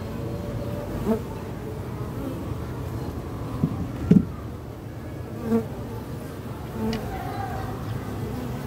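Honeybees (Apis mellifera) buzzing in flight around an open hive box: a steady hum of many bees, with single bees droning past close by several times, loudest about four seconds in.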